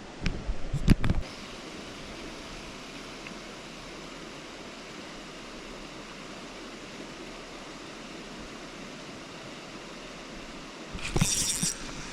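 Steady rush of flowing river water, with a few sharp knocks in the first second and a short, loud noisy burst about a second before the end.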